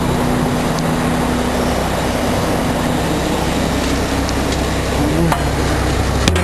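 A roll-off truck's diesel engine running with a steady low drone. Two sharp clicks or knocks come near the end.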